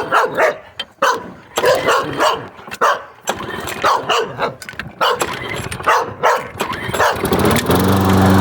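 A puppy barks over and over, then about seven and a half seconds in an old gasoline lawn mower engine catches on starter fluid and settles into steady running: its first start of the year.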